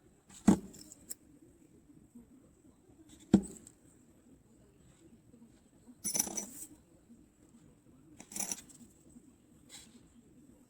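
Small metal parts clinking and knocking against each other a handful of times, a few seconds apart, with one longer metallic scrape in the middle.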